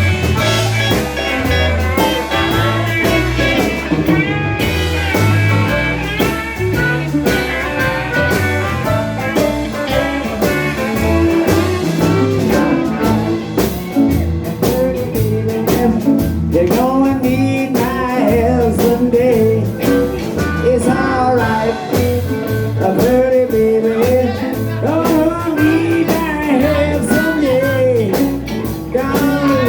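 Live blues band playing an instrumental stretch: a bending guitar lead over a walking bass line and steady drums.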